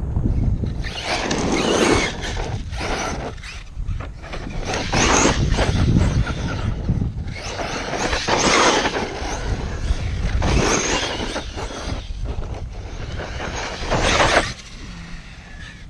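ARRMA Kraton V4 1/8-scale RC monster truck running over dirt, its noise rising in several rough surges a few seconds apart over a steady low rumble.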